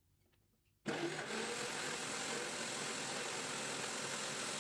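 Countertop blender switched on about a second in and running steadily, blending eggs, cheese and oil into mayonnaise while oil is poured into the jar.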